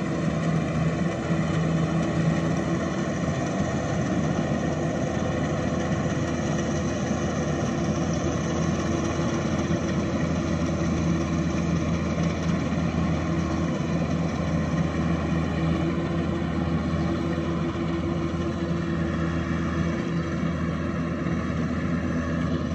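Kubota rice combine harvester's diesel engine running steadily while harvesting, a constant drone with an even hum that does not rise or fall.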